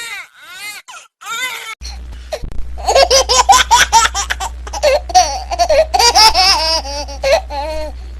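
A baby's short cries, then from about two seconds in a baby laughing hard in quick high-pitched peals, over a steady low hum.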